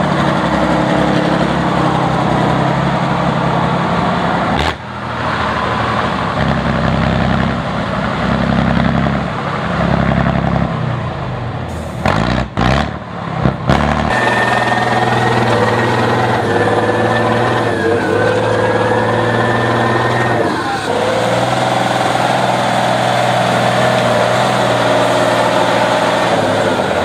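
Heavy off-road trial truck engines running and revving, in several short stretches that change abruptly from one to the next. A thin high whine sits over the engine from about halfway in for several seconds.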